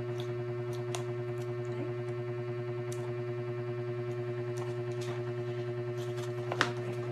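Faint clicks and scratches of fingers picking at the seal of a cardboard box over a steady low hum, with one sharper click about six and a half seconds in.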